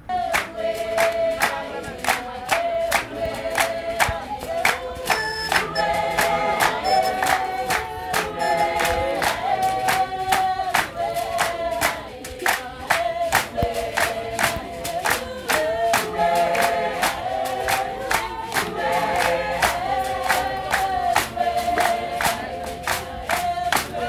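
A group of voices singing a traditional song together, kept to a steady beat of sharp hand claps, about two to three a second.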